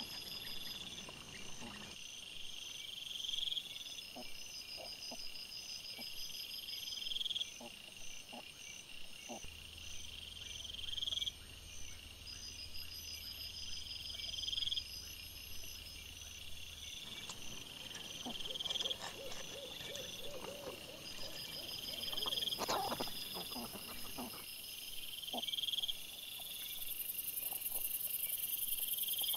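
Night chorus of calling insects and frogs: a high call repeats evenly about every two seconds over a finer trilling, with scattered rustles and clicks from wild boar rooting in the leaf litter.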